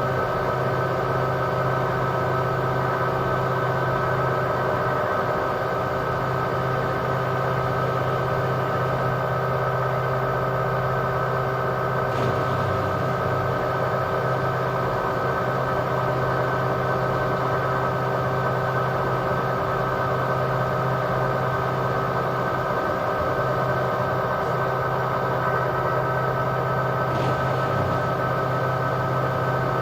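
LG washing machine in its spin cycle, the drum turning at a steady speed: an even hum with several steady tones.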